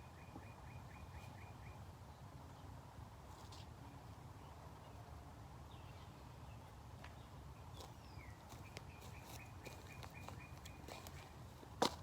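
A songbird singing twice: a quick upward note, then a rapid run of repeated high notes, over faint outdoor background noise. A sharp click comes near the end.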